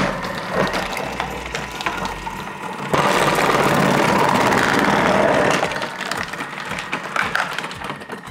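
Thermomix motor whirring with the Cutter accessory's spinning blade disc slicing sweet potato into thick slices as it is pushed down the feed tube, with crunchy cutting crackles. It swells suddenly about three seconds in and eases off near the end.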